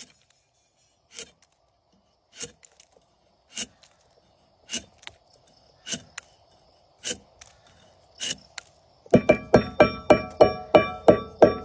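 Background music: sharp percussive hits about every 1.2 s, then near the end a quick run of ringing, pitched struck notes, about four a second.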